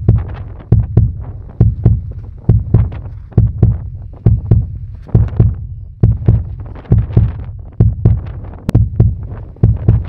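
Dyneema (cuben fiber) walls of an ultralight Zpacks Duplex tent flapping and snapping in strong wind. The sound is a fast, uneven run of loud low thumps, many in pairs, a little under a second apart.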